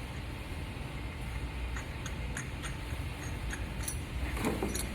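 Steady low rumble of machinery in a boiler room, with a few faint metallic clicks and a brief scraping noise near the end as handhole fittings are handled.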